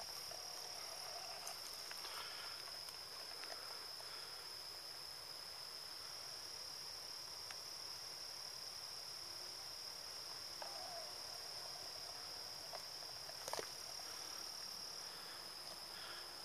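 Steady, high-pitched trill of insects calling without a break, over faint outdoor hiss, with a sharp click about thirteen seconds in.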